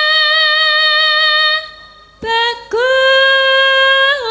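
A sinden, a Javanese female singer, singing a slow tembang in long held notes with a slight vibrato. One long note breaks off about halfway through, then comes a short lower note and another long held note.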